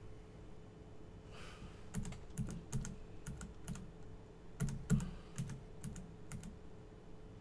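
Computer keyboard keys being pressed, about a dozen irregular clacks beginning about two seconds in.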